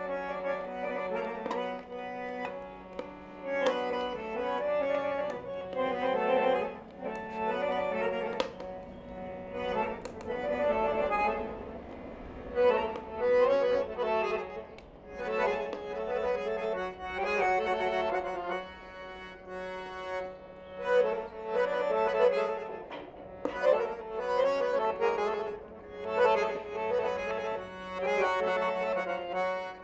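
Accordion playing a melody in short phrases over a steady held low note.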